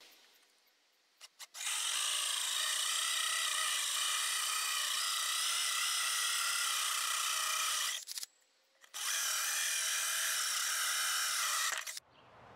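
Power drill spinning a 2-inch hole saw through a wooden board, running steadily with a held whine. It starts about a second and a half in, stops briefly about eight seconds in, then runs again until near the end as the saw cuts through.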